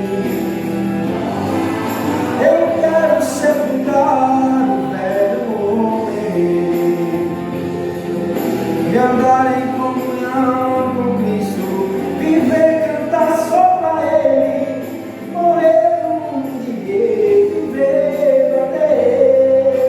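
Gospel song music with a singing voice carrying a gliding melody over sustained chords.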